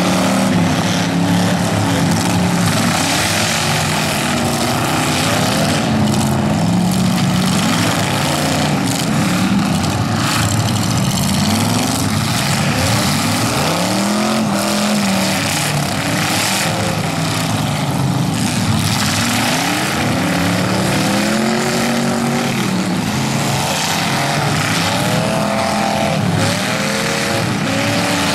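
Several V8 engines of full-size demolition derby cars revving up and down, overlapping, with thuds of car bodies ramming each other and tyres spinning in the dirt.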